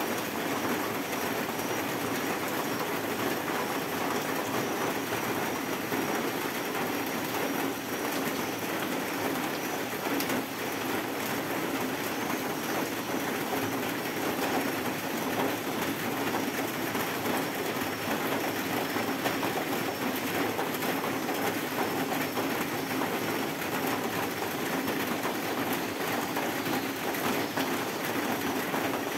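Heavy rain falling steadily, a dense even hiss packed with fine pattering ticks.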